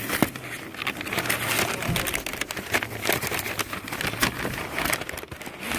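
Tissue paper crinkling and rustling as it is pulled open by hand, in an irregular run of sharp crackles.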